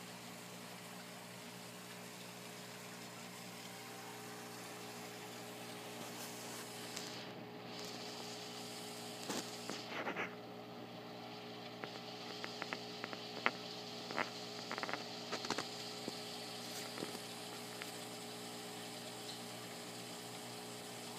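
Steady electrical hum with a low hiss. A run of small clicks and taps comes in the middle.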